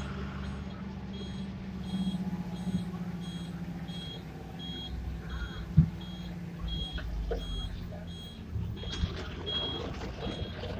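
A bus's engine running while it drives, with an electronic beeper giving a short, high beep about twice a second. A single sharp knock about halfway through is the loudest sound, and there are a few rattles near the end.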